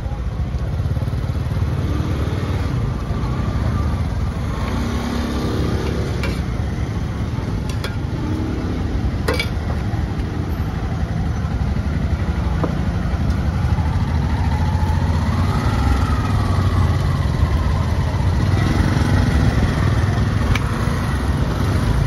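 Busy street-market noise: motorbike engines running with a steady low rumble and voices in the background. About two-thirds of the way in, one engine rises and falls in pitch.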